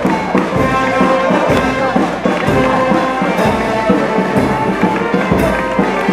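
Brass band music playing, with a steady beat about once a second.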